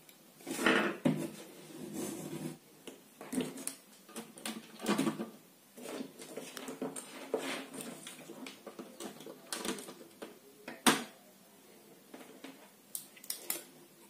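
Scattered rustling and light clicks of wires and small metal fan parts being handled on a workbench, with one sharper click about eleven seconds in.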